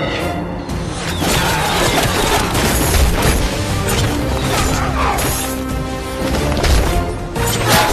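Film score music with crashes and impacts from the fight's sound effects mixed in.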